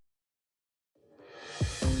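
Complete silence for about a second, then background music fades in with a steady beat.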